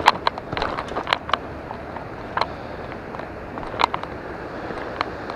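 Footsteps scuffing on granite rock and grit, a run of irregular sharp clicks, over the steady rush of the river and a small waterfall.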